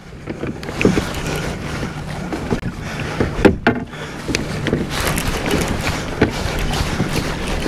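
Old Town Sportsman AutoPilot 120 electric trolling motor humming steadily on a fishing kayak at sea, setting in just after the start, over wind and water noise with scattered light knocks.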